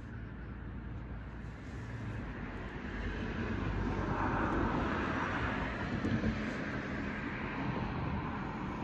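A passing vehicle: its noise swells over a few seconds, is loudest about halfway through, then slowly fades.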